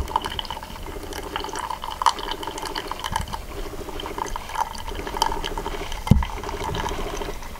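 Single-serve pod coffee brewer dispensing coffee in a thin stream into a mug. The brewer's pump hums in short pulses about once a second, and there is a low thump about six seconds in.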